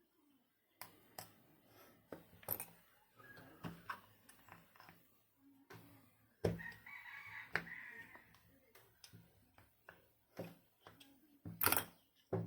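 Scattered clicks and taps from small parts being handled during LED bulb repair, with a pitched bird call of about two seconds around the middle, tagged as a rooster crowing.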